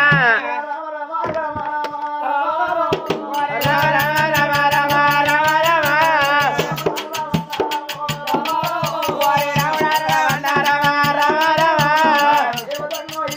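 Oggu katha folk music: a wavering melody line over a low drone, with fast hand-drum strokes and jingling percussion that thicken about three and a half seconds in.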